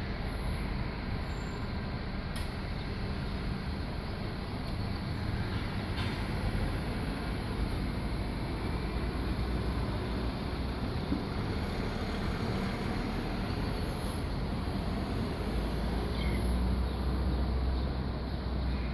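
Steady low background rumble, like outdoor noise, growing heavier in the low range near the end.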